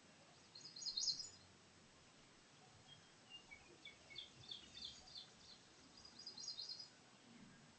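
Songbirds chirping faintly in three short runs of high notes: one about half a second in, a longer string of separate chirps in the middle, and another short run near the end.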